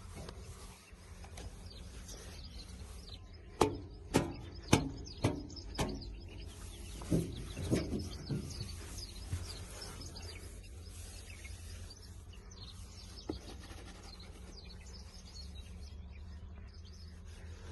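Birds chirping over a steady low rumble. A few seconds in come about five sharp knocks roughly half a second apart, then a handful of softer ones.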